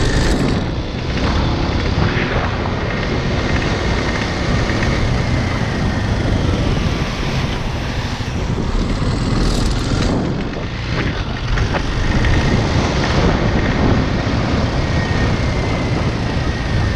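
Motorcycle engine running steadily under way, loud and droning.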